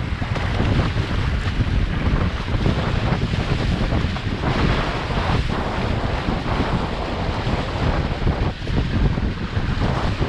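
Wind buffeting the microphone, with water rushing along the hulls of a Prindle 18.2 catamaran under sail.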